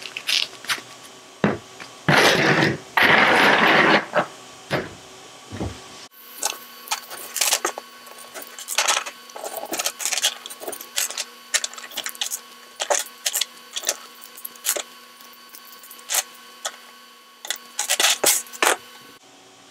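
Hands handling small 3D-printed plastic parts and a wooden-handled tool on a perforated print board: a loud rubbing scrape for about two seconds near the start, then many small clicks and taps over a steady hum that comes in about six seconds in.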